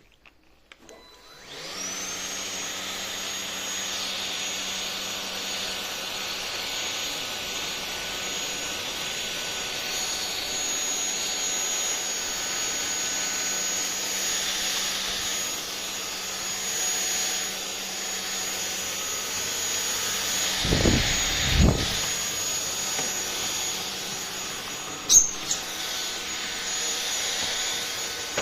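Anyson cordless stick vacuum switching on about a second and a half in: its motor spins up to a steady high whine over a rushing hiss of suction and keeps running. Two low thumps come around two-thirds of the way through, and a sharp click a few seconds later.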